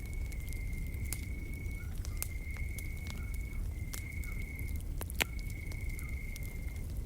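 Wood fire crackling, with scattered sharp pops and one louder snap about five seconds in, over a low steady rumble. Behind it an insect trills continuously on one high steady note, with a brief break every second or two.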